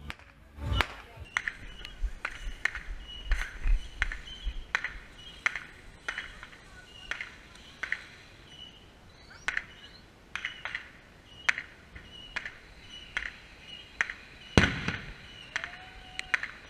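Fireworks going off: a run of sharp pops and cracks at irregular intervals, about one or two a second, with the loudest bang near the end.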